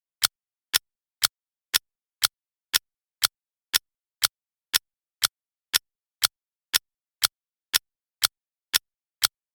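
Clock ticking at two sharp, identical ticks a second, evenly spaced, with silence between.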